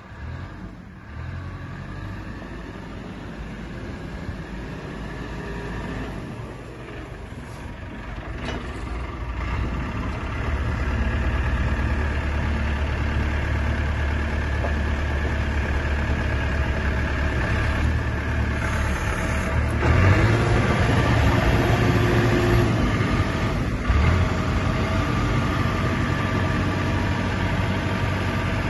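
JCB 532-120 telehandler's diesel engine running steadily while the machine drives and then works its boom hydraulics. The engine grows louder about ten seconds in and again around twenty seconds in, with a single knock about twenty-four seconds in.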